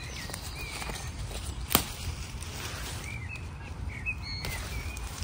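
Small birds chirping, a few short whistled notes in the middle, over a steady low rumble, with one sharp click about two seconds in.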